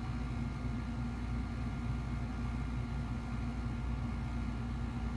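Steady low background hum with a faint constant tone, no distinct events.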